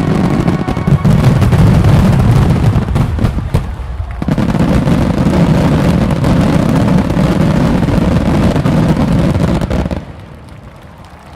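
Fireworks going off in a rapid, dense barrage of booms and crackles, easing briefly about four seconds in, then stopping suddenly near the end.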